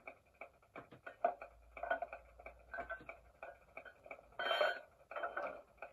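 Class 08 shunter sound-decoder effects played through a model locomotive's small speaker: a faint, rapid, even ticking, with a short burst of noise about four and a half seconds in, the uncoupling sound effect.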